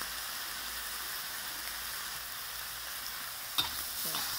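Pork pieces and garlic sizzling steadily in hot oil in a wok. About three and a half seconds in, a metal spatula clicks and scrapes against the wok as the meat is stirred.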